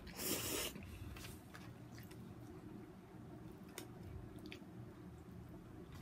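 A person slurping in a mouthful of spaghetti in the first second, then chewing it with soft, wet mouth sounds and small clicks.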